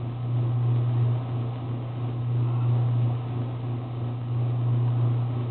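A steady low hum under an even background hiss, swelling and dipping slightly in loudness.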